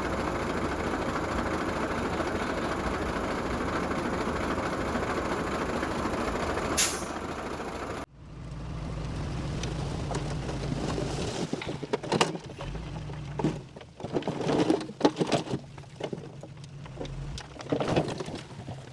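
Heavy diesel truck running loudly, with one short, sharp air-brake hiss. After an abrupt cut, a lower, steadier engine hum with a series of irregular knocks and bangs from earthmoving machinery at work.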